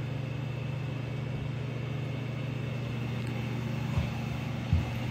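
Steady low hum of the ventilation fans inside the submarine, with a couple of soft thumps near the end.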